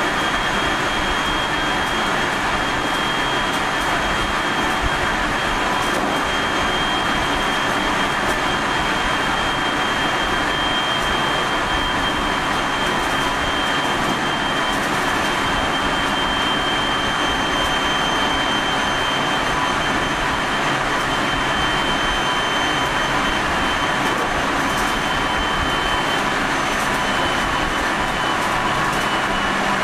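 JR 373 series electric car KuMoHa 373-11 running at speed: steady rumble of the wheels on the rails with a high steady whine from the drive, sinking slightly in pitch near the end. This car (set F11) is known for an unusually strong abnormal running noise.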